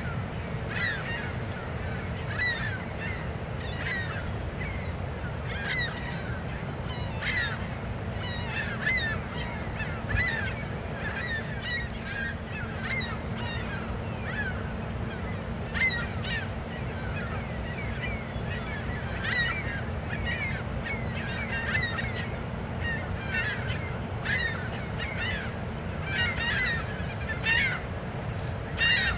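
Many short bird calls, repeated every second or so and often overlapping, over a steady low rumble and hum.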